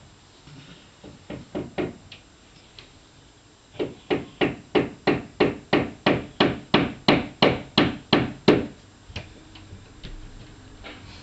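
Knocking thuds from the upstairs neighbour, coming through the ceiling: a few scattered knocks, then a steady run of about fifteen at roughly three a second that stops abruptly.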